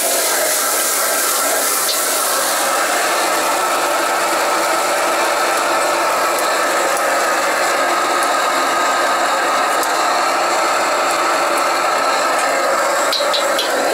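Steady roar of a restaurant gas wok burner, with vegetables frying in the wok. A few light metal clinks of the ladle against the seasoning bowls near the end.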